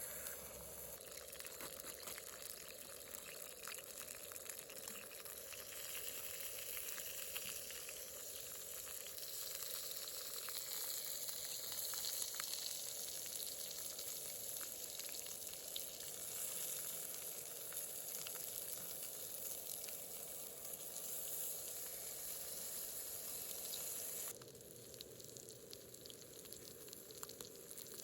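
Food sizzling as it cooks: a steady hiss full of small crackles, which turns quieter and thinner near the end.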